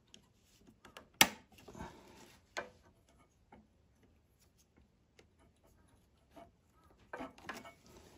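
Small metal clicks, knocks and light rubbing as a carburetor is worked free of its throttle linkage and slid off its mounting studs on a wing mower's small engine. A sharp click comes about a second in, and a few more knocks come near the end.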